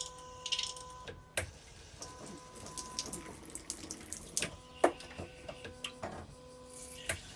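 Washlet bidet toilet spraying water, with splashing and many sharp taps and clicks scattered through; a faint steady hum comes and goes.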